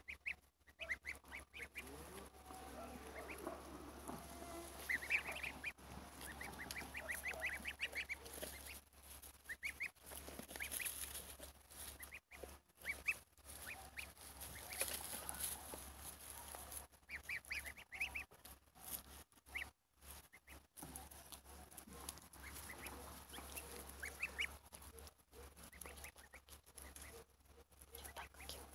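A flock of domestic goslings peeping: short, high, thin calls, often in quick runs of several, coming on and off throughout.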